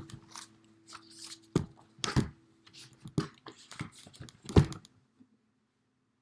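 Paper pages of a spiral-bound music book being flipped and rustled by hand, with a few louder knocks as the book is handled against its stand. The nylon strings of a classical guitar keep ringing faintly until they are cut off about a second and a half in.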